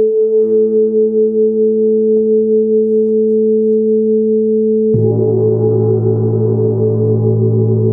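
Tibetan gong ringing with long, steady tones that waver slowly. A soft stroke about half a second in adds a deeper tone, and a firmer strike about five seconds in sets off a fuller ring with many more overtones.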